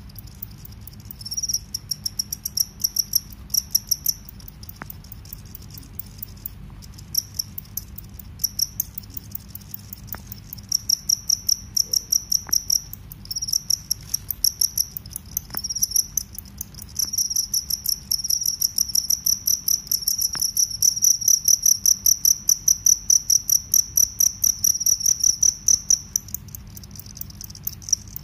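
Field crickets chirping: a high-pitched, steady series of sharp chirps made by stridulation, the wings rubbed together. Partway through the chirps run together into a long unbroken stretch.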